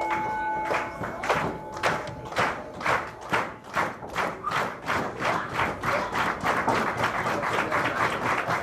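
Wrestling crowd clapping in a steady rhythm, about three claps a second. A ring bell's ring dies away in the first second.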